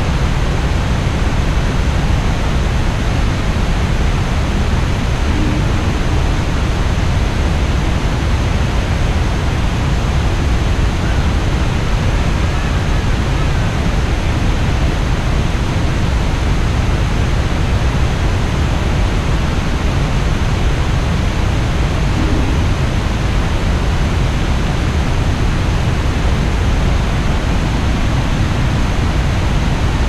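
Iguazu Falls, water pouring down: a loud, steady rush of falling water.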